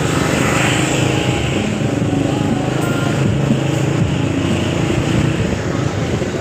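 Motorcycle engine running steadily at low speed in street traffic, heard from the back of the moving bike, with wind and road noise.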